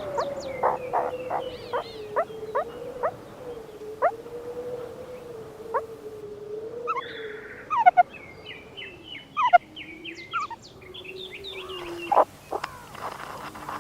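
Meerkats calling: short sharp chirps, several a second at first, then a denser run of rapid twittering calls, over a steady wavering low tone.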